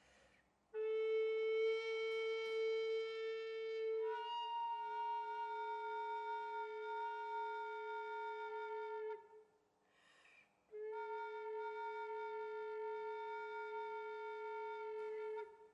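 Solo wooden recorder playing long, held notes at a steady pitch; about four seconds in the tone colour of the first note changes. It breaks off after about nine seconds, a breath is heard in the short pause, and another long held note follows.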